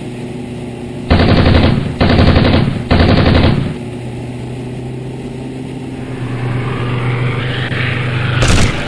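Three bursts of machine-gun fire, each well under a second long, dubbed in as a sound effect over the steady drone of the Europa Monowheel's engine and propeller. Near the end a rising hiss builds to a sharp bang.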